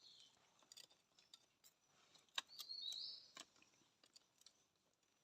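Near silence, with scattered faint sharp clicks and two short high-pitched chirps about halfway through.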